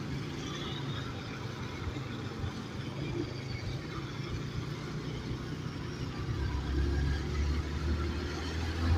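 Motorcycle engine running while riding, under steady road and wind noise. A deeper engine hum comes in about two-thirds of the way through and grows louder.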